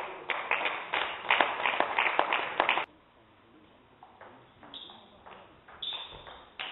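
A loud burst of crowd noise from the hall for about the first three seconds, cut off suddenly, then a table tennis rally: the celluloid ball clicking off rubber paddles and the table, with short high squeaks of shoes on the gym floor.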